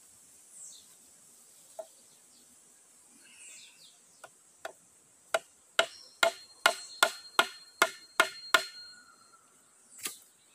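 Hollow green bamboo being knocked: a run of about ten sharp knocks, roughly three a second, each with a short ringing tone, then one more knock near the end.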